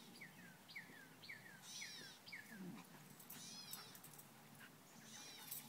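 Faint high whining squeaks from dogs at play: a run of about five short falling squeaks, roughly two a second, then a few higher squeals and a brief low groan-like sound.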